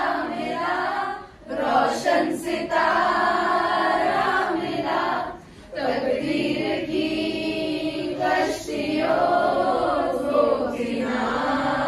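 Choral singing with female voices in long held phrases, broken by short pauses about a second and a half and five and a half seconds in.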